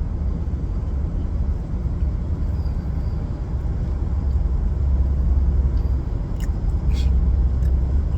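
Steady low rumble of a moving car heard from inside the cabin: road and engine noise, with a few faint clicks near the end.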